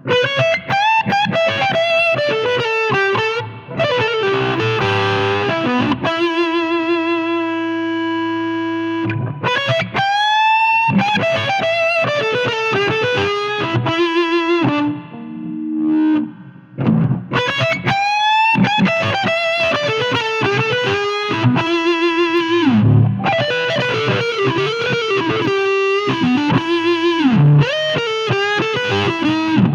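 Electric guitar played through a Cardian Effector Vitamin C transistor fuzz pedal: distorted single-note lead lines with a long sustained note and a string bend near the middle.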